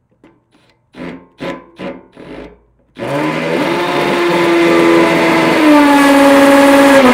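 Milwaukee Fuel cordless drill driving a self-tapping screw into sheet metal. After a few short bursts it runs steadily from about three seconds in, and its pitch steps down twice as the screw bites and the motor comes under load.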